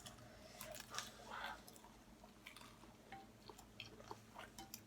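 Faint chewing with scattered small mouth clicks of someone eating.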